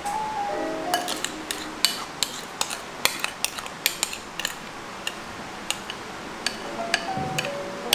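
A metal spoon clinking and tapping against a bowl and glass while scooping whipped dalgona coffee onto a drink: a run of sharp, irregular clinks.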